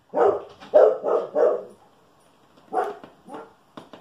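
A dog barking: four quick loud barks in the first second and a half, then two more about a second later, followed by a few short sharp clicks near the end.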